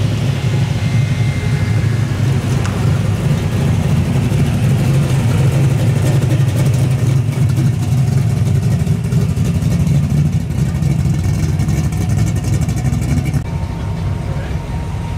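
Classic cars' engines running with a deep, steady exhaust note as they cruise slowly past: a 1930s Ford coupe hot rod, then a Ford Maverick. About thirteen seconds in the sound shifts to another car, a first-generation Ford Mustang.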